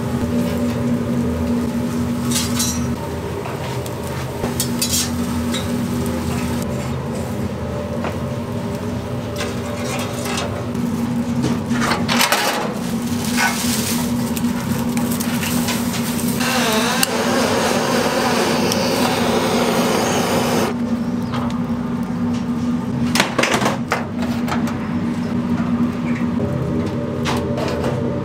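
Restaurant kitchen work: dishes, pots and utensils clinking and knocking over a steady mechanical hum that holds one constant tone. Past the middle, a few seconds of rushing, hissing noise.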